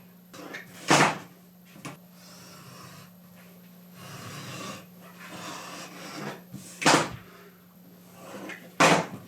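Blade being sharpened on a Fällkniven ceramic sharpening stone: soft scraping strokes of steel on ceramic, with three loud sharp knocks, about a second in, near seven seconds and near the end.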